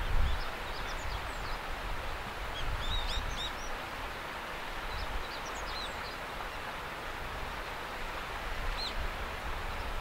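Outdoor ambience: a steady rushing haze of noise, with small birds giving short, high, thin chirps now and then: a cluster about three seconds in, a few more around five to six seconds, and one near the end.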